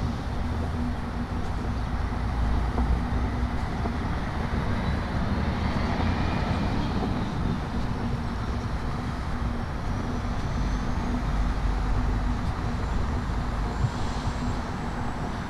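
Street traffic: a motor vehicle running past with a steady low rumble, and faint high whines that rise slowly in pitch.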